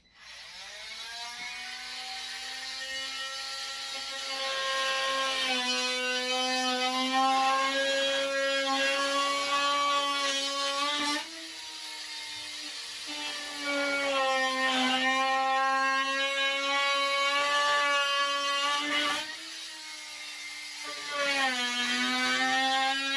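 Milwaukee power saw cutting a shallow trench in a plywood wall panel: a high, steady motor whine that spins up at the start. It twice drops in level and shifts pitch as the cut lets up, and comes back up near the end. A little noisy.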